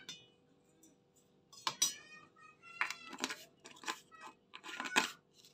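Metal spoon scraping and clinking against a glass coffee jar and a stainless steel mixer jar as spoonfuls of coffee are scooped out and tipped in: a handful of short scrapes and taps.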